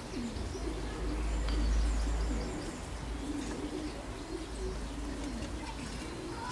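Pigeons cooing steadily in the background, with faint small-bird chirps above them. A low rumble swells about a second in and fades about two seconds later.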